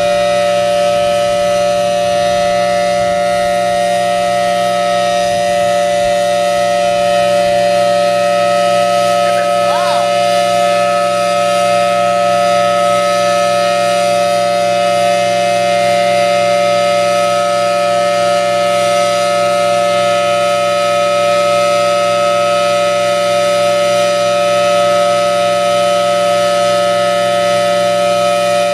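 Federal Signal Thunderbolt 1000T outdoor warning siren sounding a steady two-tone chord at full volume, with no rise or fall in pitch, during its monthly test.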